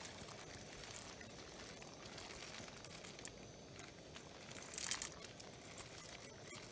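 Plastic zip-top bag crinkling as dry macaroni noodles are poured from it into a pot of boiling water, with a brief louder rustle about five seconds in, over a steady low hiss.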